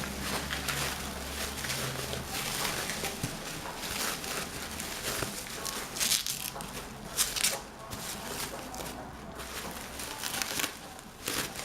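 Irregular crinkling and rustling handling noise, with several sharper crackles, typical of plastic film and packaging being handled during a tablet screen repair.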